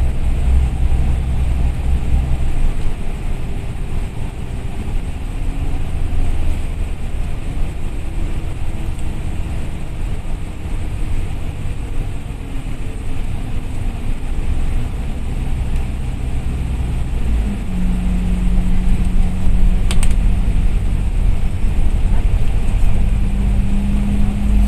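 Inside a moving KMB bus: steady engine drone and road rumble. About two-thirds of the way through a steady engine hum comes in, stepping up in pitch near the end, with a single sharp click shortly before.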